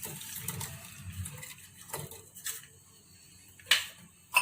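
A spoon clinking against a metal cooking vessel: a couple of light taps about two seconds in, then two sharp, ringing clinks near the end.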